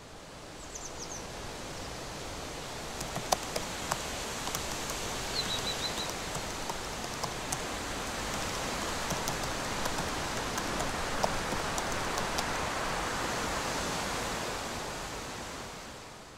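Steady outdoor ambience: an even rushing hiss with scattered faint clicks and a couple of brief high bird chirps, one about half a second in and a short run of notes about five and a half seconds in. It fades in at the start and fades out near the end.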